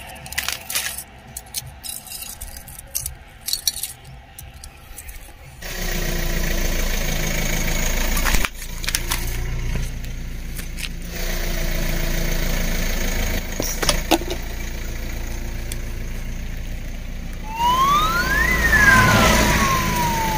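Foil-wrapped chocolate coins clinking onto a plastic plate, a scatter of light clicks over the first five seconds. Then a steady vehicle engine runs, and near the end a siren-like whine rises and then falls.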